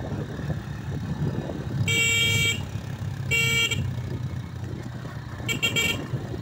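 Motorcycle engine running steadily on the move, with a horn beeped twice, each about half a second, around two and three and a half seconds in, then a quick stutter of about four short beeps about a second before the end.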